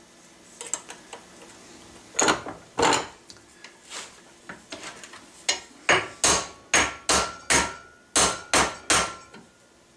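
Hand hammer striking a steel mandrel set in a bench vise, driving it down tight into a sheet-metal ramrod thimble. Two blows about two seconds in, then a quick run of about ten blows in the second half, with a faint metallic ring under them.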